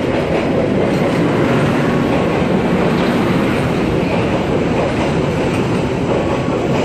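Passenger train rolling past close by along a station platform, a loud, steady rumble of its coaches and wheels on the rails.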